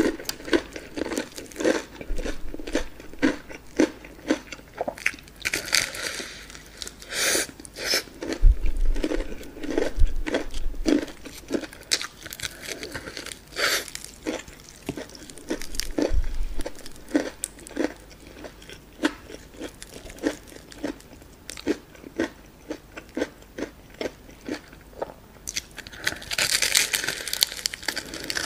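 Close-miked chewing and crunching of a breaded, deep-fried chicken drumstick: a steady run of crisp crunches as the coating is chewed, with a few louder bites into the crust, the longest near the end.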